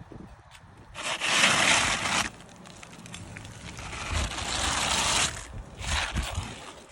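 Rough scraping and crunching in three stretches. The first, about a second in, is the loudest, a longer one follows, and a short one comes near the end.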